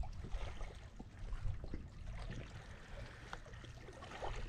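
Small waves lapping and trickling against a kayak's hull, with scattered light splashes and drips over a low rumble.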